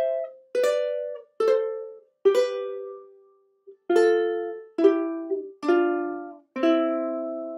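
Ukulele playing a descending C major scale in harmonised thirds: two strings plucked together on each step, about eight steps down, ending on a low C and E pair that rings out near the end.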